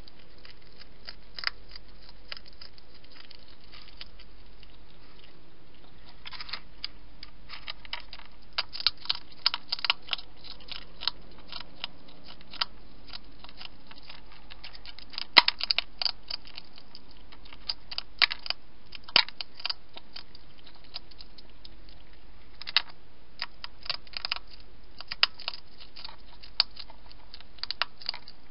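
Wild hedgehog chewing food from a dish: quick, irregular crisp crunching clicks in runs with short pauses, sparse at first and busier after about six seconds.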